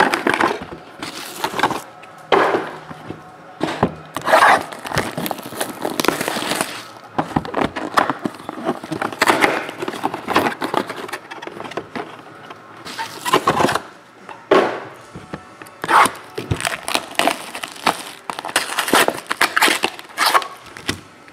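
Hands tearing open a cardboard trading-card box and crinkling its plastic shrink wrap: irregular tearing and crackling in a run of short bursts with brief pauses between them.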